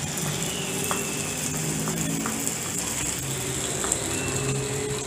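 Vegetables and sausage sizzling in a frying pan as cream sauce is stirred in with a wooden spatula, with a steady hiss and a few light clicks of the spatula against the pan.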